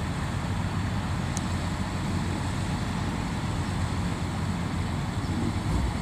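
Kubota DC93 combine harvester's diesel engine running steadily with a low, even hum.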